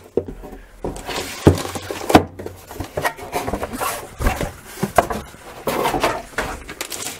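Cardboard packaging box and a plastic-bagged network switch being handled on a table: scattered knocks, the sharpest about one and a half and two seconds in, with rubbing and rustling of cardboard and plastic between them.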